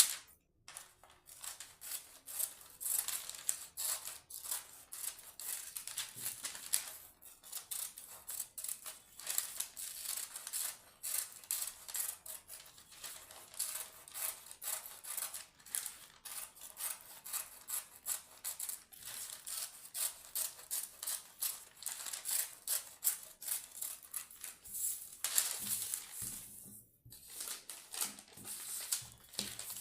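Scissors snipping through cake-pan lining paper: many quick, crisp cuts in a row, with a short pause near the end.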